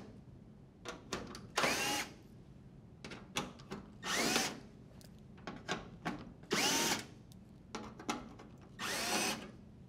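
Milwaukee cordless drill driver backing out screws from a dryer's sheet-metal backsplash panel: four short whirring runs about every two and a half seconds, each rising in pitch as it spins up, with small clicks of the bit on the screws in between.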